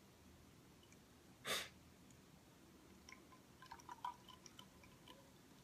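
A person sniffing a glass of beer held to the nose: one short, sharp sniff about one and a half seconds in, then a cluster of faint small clicks and crackles.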